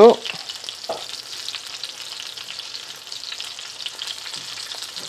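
Breaded chicken frying in a pan: a steady sizzle with small crackles throughout.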